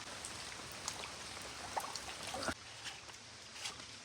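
Steady rain hiss with running creek water, scattered drop ticks, and a sudden drop in level about two and a half seconds in.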